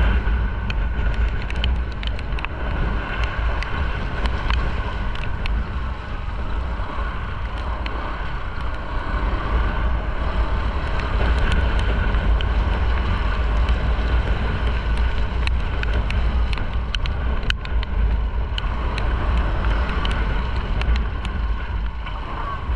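Riding noise of a motorcycle moving slowly on wet streets: a steady low rumble of wind on the camera microphone over the engine and tyres on the wet road, with frequent small ticks of raindrops hitting the camera.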